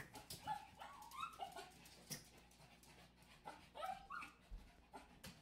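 A small dog whimpering and yipping faintly in short, scattered calls, with a few faint clicks.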